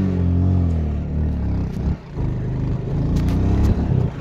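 Motor vehicle engine running with a steady low hum, dipping briefly about two seconds in, with a few faint clicks after that.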